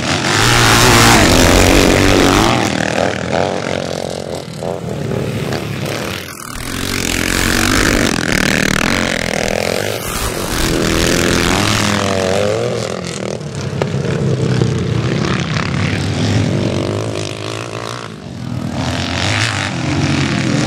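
Classic motocross bikes racing past, their engines revving up and down, the sound swelling and fading several times as bikes come by.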